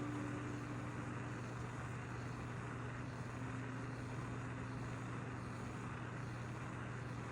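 Jeweller's gas soldering torch burning steadily, a continuous even hiss over a low hum.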